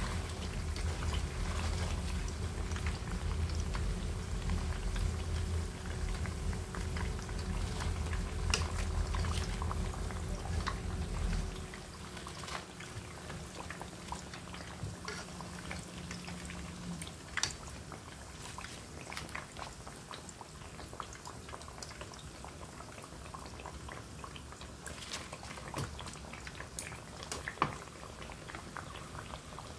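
Battered sweet potato slices deep-frying in hot oil: a steady sizzle with scattered crackles and sharp clicks. A low hum underneath cuts off about twelve seconds in.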